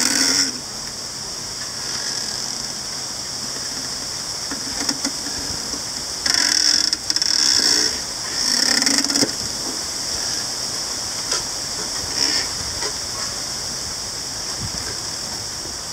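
Overgrown, densely crowded bamboo culms creaking as they rub against one another, in drawn-out creaks of about a second each: one ending about half a second in, two back to back around six to eight seconds, another near nine seconds and a fainter one near twelve. Between them, a steady hiss of wind in the leaves.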